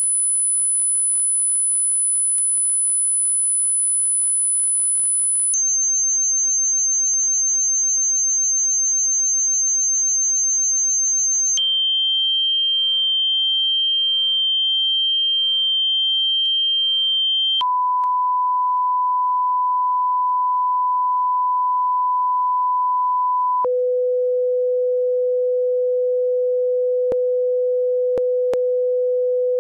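Broadcast test-card test tones: a sequence of five pure steady tones, each held about six seconds, stepping down in pitch from a very high whistle to a low-middle tone.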